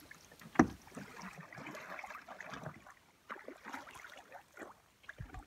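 Faint lapping and small splashes of lake water along the shore, with one sharp knock about half a second in.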